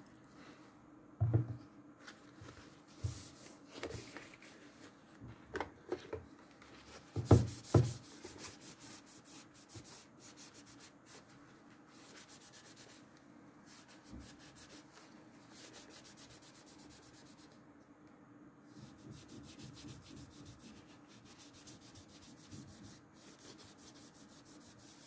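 Paper towel rubbing and wiping over the plastic casing of a clock radio telephone. In the first eight seconds there are several plastic knocks as the handset is handled; the loudest pair comes near eight seconds. After that there is steady soft rubbing.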